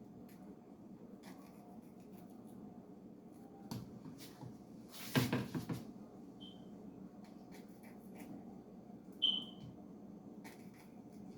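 Sausage being cut up with a knife on a board: scattered light clicks and taps, with a louder noisy stretch of scraping about five seconds in. Two short high chirps sound midway and near the end, over a steady low hum.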